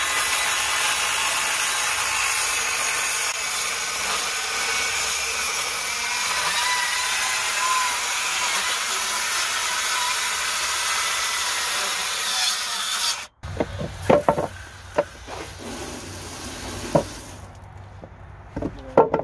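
Handheld power tool running steadily under load for about thirteen seconds, then stopping abruptly. After it, scattered knocks and clatter.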